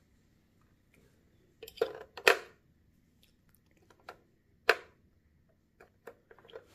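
Hard plastic clicks and knocks from a toy dog coin bank's plastic casing being handled: a few loud clicks about two seconds in, another sharp one a little before five seconds, then several light ticks near the end.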